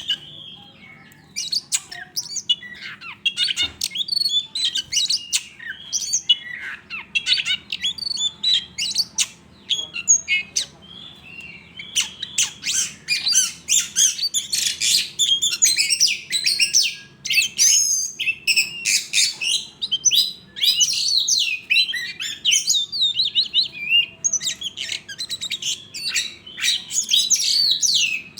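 Oriental magpie-robin (kacer) singing a rapid, varied song of short sweeping and chirping notes, near-continuous with a few brief pauses.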